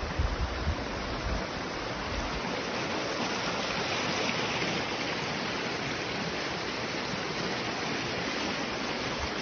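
Water rushing steadily in a stream, with a low rumble over it in the first two seconds or so.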